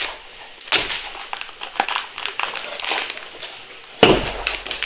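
Cardboard packaging being handled as a small box is opened and its contents lifted out: irregular rustling and crinkling with small clicks. Two louder knocks, about a second in and near the end, sound like items being set down on the table.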